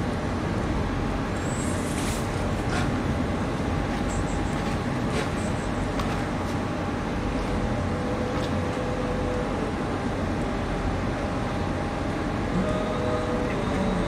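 Steady low rumble of container-port machinery and distant traffic across the harbour water, with a few faint clicks and short faint tones.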